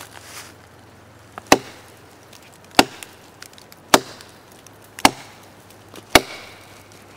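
Large fixed-blade knife (Fehrman Final Judgment) chopping into a fallen log: five sharp chops, evenly spaced about a second apart.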